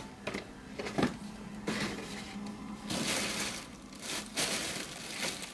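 Packaging rustling and crinkling as hands rummage through a cardboard shipping box, in several short noisy bursts.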